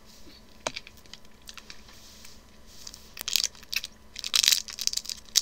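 Plastic candy packaging crinkling in a run of crisp bursts, loudest about four seconds in, after a single sharp click near the start.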